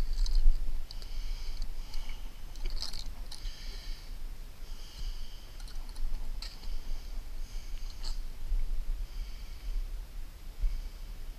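Wind rumbling on the microphone, with a bird calling in short high phrases about once a second and a few sharp clicks.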